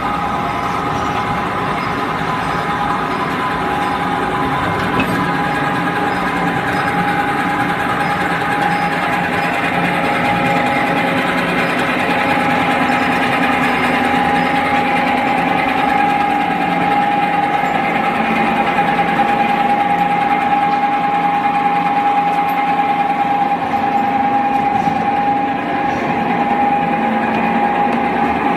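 Two-wave W-beam guardrail roll forming machine running: a steady mechanical hum with a constant high whine, growing slightly louder over time.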